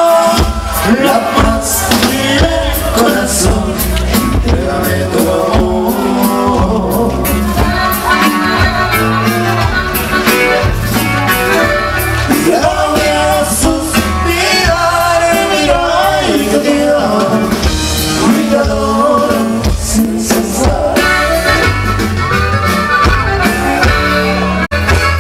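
Live norteño band playing a dance number: an accordion-led melody over bass and drums with a steady beat. There is a momentary drop-out near the end.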